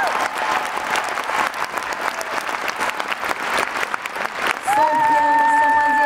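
Arena audience applauding, a dense patter of clapping, as a held chord of the orchestral music cuts off. Nearly five seconds in, another sustained chord sounds over the applause.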